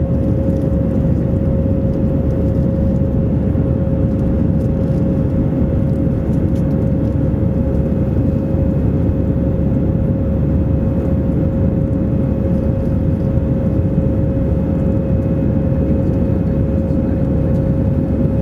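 Steady jet cabin noise of an Airbus A319 in flight, heard from a seat over the wing: a deep, even rumble of engines and airflow with a steady mid-pitched hum running through it.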